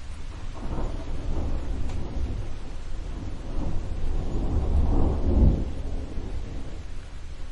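Thunder rolling from an approaching thunderstorm, rising in two swells, the louder peaking about five seconds in and fading away, over a steady hiss of rain.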